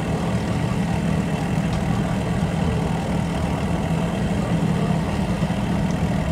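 Boat engine idling, a steady low hum that holds even throughout.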